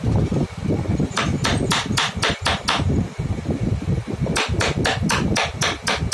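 Wooden mallet striking the handle of a wood chisel to cut out a thin wooden shape. Quick, even taps about four a second start about a second in, pause for about a second and a half, then start again.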